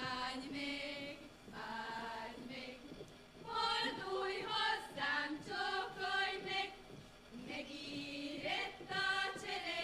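A choir singing a Hungarian folk song, long held notes in slow phrases with short breaks between them.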